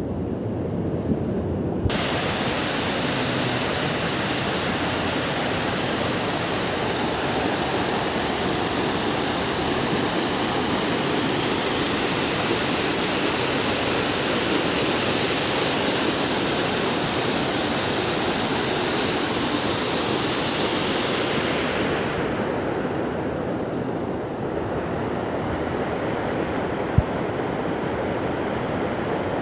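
Floodwater rushing in a swollen river, a steady loud rush of noise. Its hiss brightens sharply about two seconds in and falls away about three quarters of the way through, with a single sharp click near the end.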